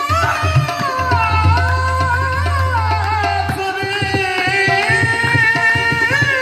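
Live qawwali: a lead voice sings a long wavering, ornamented line over harmonium chords, with tabla strokes and handclaps keeping the beat.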